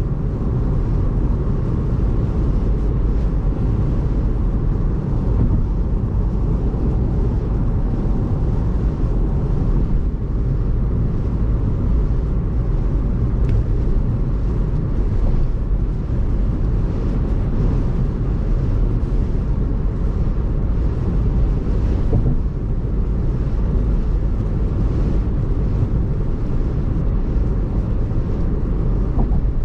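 Car driving on an expressway in heavy rain: a steady low rumble of tyres on the wet road, with a fainter hiss above it.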